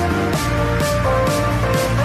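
Background music with a steady beat: a held melody over heavy bass and drums.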